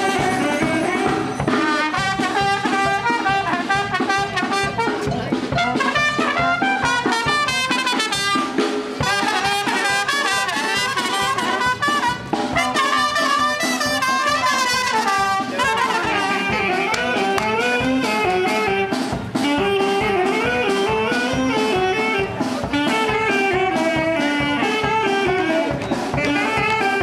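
Brass band music playing a lively melody over a steady drum beat.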